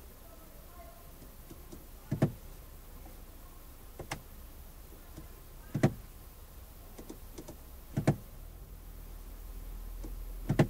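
Clicks of a BMW iDrive controller being pressed and turned to move through the dashboard screen's menus: five sharp clicks about two seconds apart, some doubled, with a few fainter ticks between them, over a low cabin hum.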